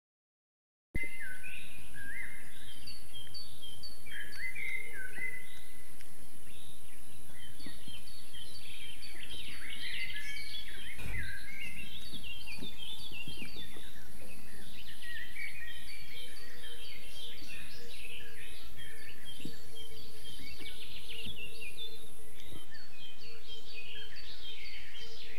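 A chorus of many birds chirping and calling over one another, with a high, steady insect buzz above them. About a second in the sound starts suddenly. Partway through the buzz takes on a fast pulse, and it stops near the end.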